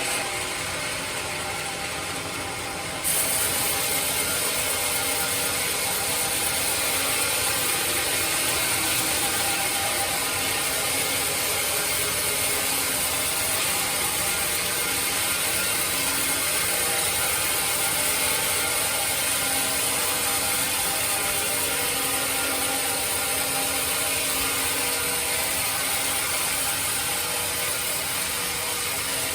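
Band sawmill running: a steady machine noise with several steady tones. About three seconds in, a high hiss sets in suddenly and holds.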